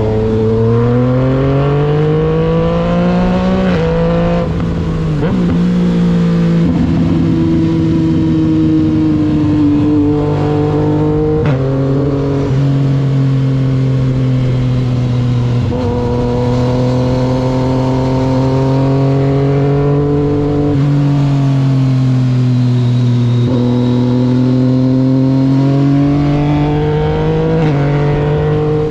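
Yamaha MT-09 three-cylinder motorcycle engine running under way. Its pitch rises and falls with the throttle and jumps abruptly at several gear changes, typical of shifts made with the quickshifter.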